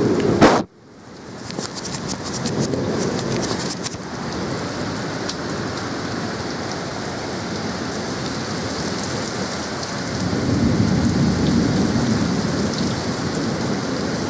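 Heavy rain mixed with hail pelting a lawn, path and house, a steady hiss with scattered sharp clicks a second or two in. About half a second in comes a single loud knock, and the downpour swells louder around ten seconds in.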